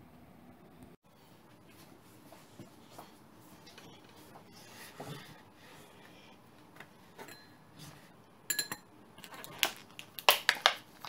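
Kitchenware being handled on a tabletop: a plastic mixing bowl with a wooden spatula in it, and plates, shifted and set down. It is faint at first, with several sharper knocks and clinks in the last few seconds.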